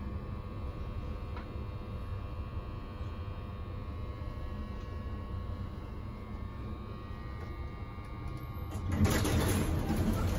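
1990 Mitsubishi traction lift running: a steady low hum with faint steady whining tones from the car and its machinery. About nine seconds in, a louder rushing noise suddenly comes in.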